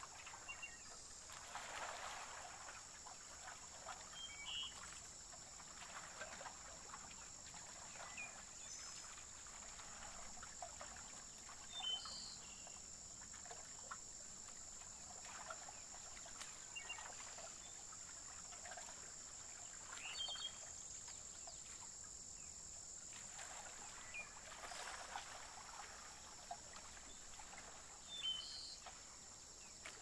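Faint lakeside nature ambience: a steady high-pitched insect drone, a few short bird chirps every few seconds, and soft water lapping.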